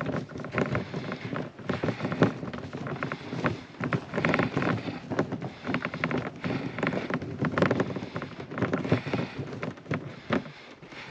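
Scuffling and rustling while a newborn Highland calf is held down for ear-tagging: a dense run of irregular crackles, rustles and knocks.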